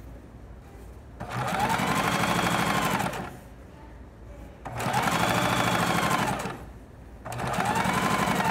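Domestic electric sewing machine stitching a trouser seam in three short runs of about two seconds each, with brief pauses between. In each run its motor whine rises as it speeds up and falls as it slows, and the last run starts near the end.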